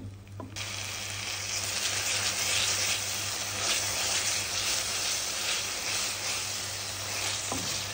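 Onion, ginger-garlic paste and tomato purée sizzling in oil in a kadhai as a wooden spatula stirs the masala. It is a steady, even hiss that starts suddenly about half a second in.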